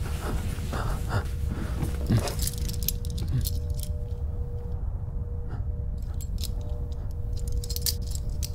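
Steel handcuffs being handled, their chain and cuffs clinking and jingling in short scattered bursts from about two seconds in, over a low steady drone.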